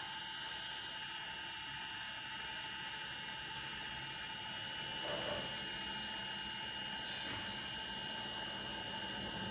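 A lathe running with a steady whine of several held tones over a hiss, and a brief louder high-pitched burst about seven seconds in.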